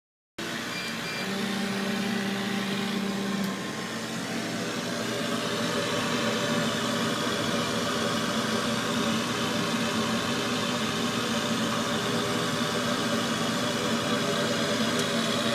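CO2 laser engraver running: a steady mechanical hum with a rush of air from its fans, starting suddenly about half a second in. A short steady whine sounds over it in the first few seconds.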